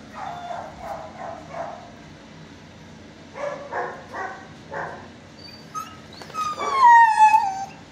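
Dogs barking in a shelter kennel: a run of about four barks, then four more about halfway through. Near the end comes a long whine falling in pitch, the loudest sound.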